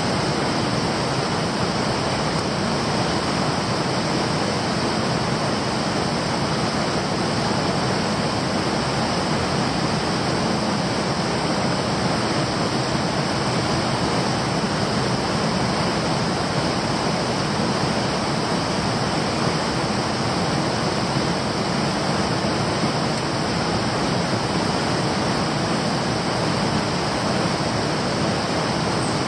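Fast-flowing stream water rushing steadily, an even wash of noise with no breaks.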